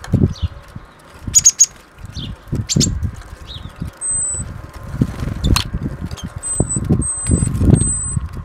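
Great tits fluttering on and off a wooden bird feeder close by, their wingbeats coming in repeated irregular bursts, with a few sharp clicks in the first seconds. Thin, very high short calls sound four times, once midway and three times near the end.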